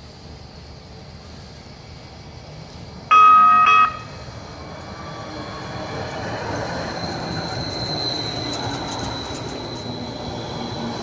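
New Jersey light rail train sounding one short horn blast about three seconds in, then the rumble of the train growing louder as it approaches, with a thin high whine above it.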